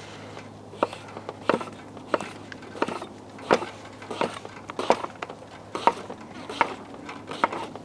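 Kitchen knife chopping on a cutting board: about a dozen sharp, evenly paced chops, roughly three every two seconds, over a faint steady hum.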